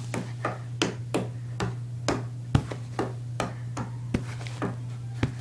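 Quick, irregular sharp clicks and taps, about three or four a second, from rough hand play with a small dog on a bed, over a steady low hum.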